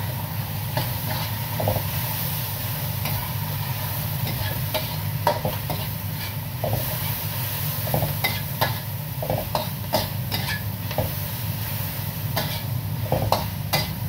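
Vegetables stir-frying in oil in a wok over a gas flame: steady sizzling, with a spatula scraping and clicking against the pan at irregular moments, busier in the second half. A steady low hum runs underneath.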